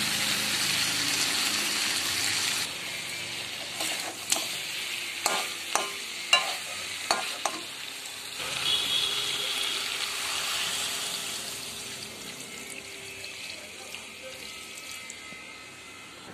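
Spiced mutton sizzling in a hot kadai as a spatula stirs it, with several sharp knocks of the spatula against the pan. About halfway through, water poured in for boiling the meat sets off a fresh hiss that slowly dies down.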